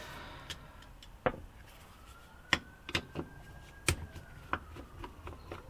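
Screwdriver working the small screws that hold the automatic choke onto a cheap Chinese carburettor: sparse, sharp metal clicks and ticks, about one a second at uneven intervals.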